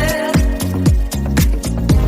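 Dance-pop music with a steady kick drum about twice a second under sustained synth and instrument chords, with no singing.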